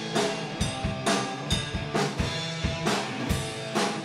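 Rock band playing between sung lines: a drum kit keeps a steady beat with bass drum and snare under electric guitar and band.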